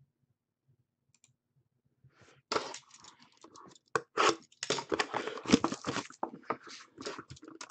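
A sealed box of 2014-15 SP Game Used hockey cards being unwrapped by hand: crinkling and tearing of its wrapping in quick, uneven strokes, starting about two and a half seconds in.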